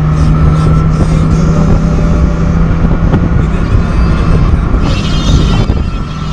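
Mazda Miata's four-cylinder engine pulling at around 4,500 rpm as the car accelerates at highway speed, a loud steady engine drone over a rush of wind and road noise. This is the highway pull the owner finds weak.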